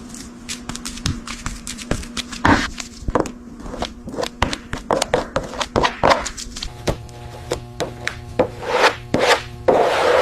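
Irregular clicks and taps with short rubbing and scraping strokes, like hands working on hard parts, over a faint steady hum.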